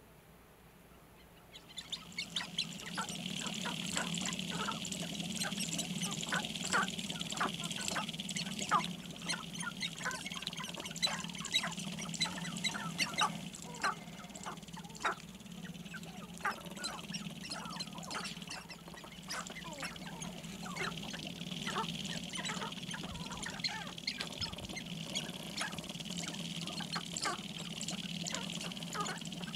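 Sharp-tailed grouse displaying on a lek: a dense chorus of many short clucking, cackling calls and sharp clicks over a low steady hum. It starts about two seconds in, after a near-silent moment.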